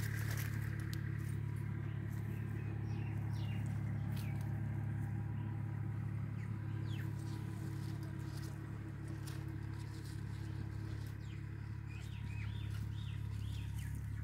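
Steady low motor hum, with small birds chirping now and then and a cluster of short chirps near the end.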